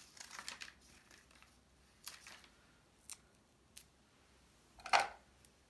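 Paper craft pieces being handled on a table: light rustling, then a few small clicks and one louder sharp click or snip about five seconds in.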